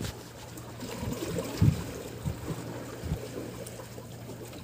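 Seawater sloshing and lapping against the concrete blocks of a breakwater, with a few soft low thumps.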